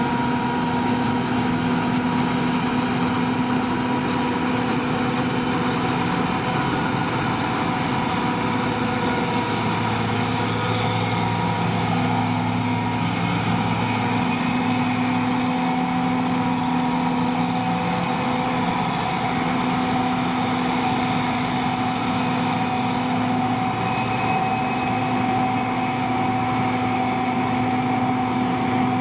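John Deere 2258 combine harvester running steadily while cutting winter barley: a constant engine and machinery drone with several steady tones over it.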